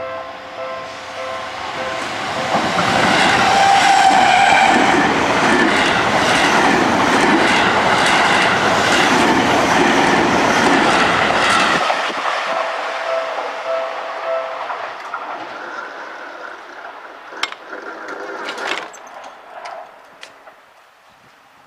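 Level-crossing alarm bells ringing, then a Seibu 30000 series electric train passing at speed for about ten seconds, its wheels clattering over the rail joints. The train noise cuts off abruptly about twelve seconds in. The crossing bells ring briefly again and fade, with a few sharp clicks near the end.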